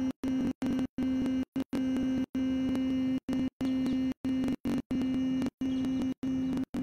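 A woman humming one steady note through closed lips: the bee-like hum of Bhramari pranayama, sounded on the long out-breath. The hum cuts out again and again in brief dropouts.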